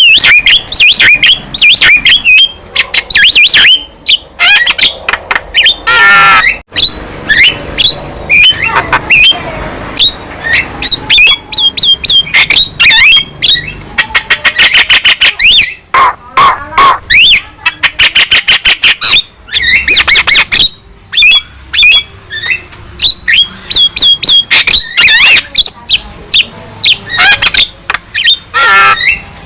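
Young Javan myna singing continuously: a fast, dense string of harsh squawks, clicks and whistled chirps.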